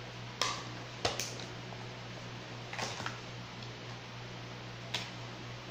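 A handful of short, light clicks and knocks from things being handled on a kitchen table during salad making, scattered over a steady low hum.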